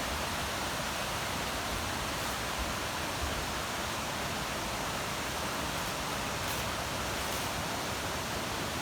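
Steady rushing of creek water, an even hiss with no breaks.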